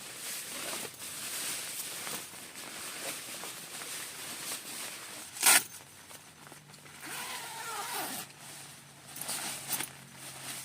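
Rain falling steadily on a tent, with rustling handling noises, a single sharp knock about halfway through, and short rasping strokes near the end.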